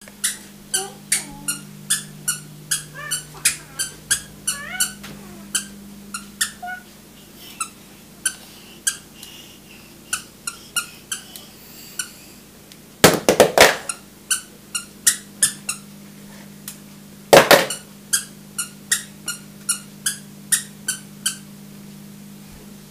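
Toddler's squeaker shoes squeaking with each step: a short, high squeak about twice a second as she walks. About halfway through, and again a few seconds later, come two louder flurries of quick, sharp sounds.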